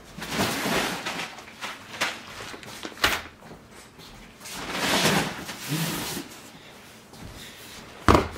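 Packages being pulled off shelves and handled: cardboard scraping and rustling in several short swishes, with a longer rustle about five seconds in. Just after eight seconds a cardboard box is dropped onto the cart with a sharp thud, the loudest sound.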